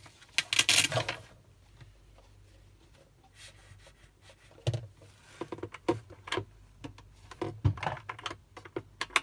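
Handling of a plastic toy doctor's kit. It starts with a brief rustle of the fabric blood-pressure cuff, followed by scattered light plastic clicks and taps as the squeeze bulb is handled and the Blood Pressure button is pressed.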